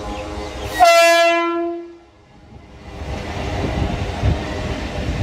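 Mumbai suburban local train sounding its horn in one loud blast of a little over a second, a single steady note that fades out. It is followed by the low rumble and rattle of the train running, building up over the last couple of seconds.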